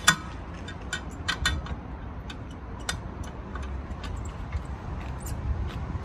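Irregular clicks and knocks from the metal parts of a tow-bar bike rack being handled and adjusted with a bike mounted on it. The loudest comes right at the start and a few sharper ones follow over the next three seconds, over a steady low rumble.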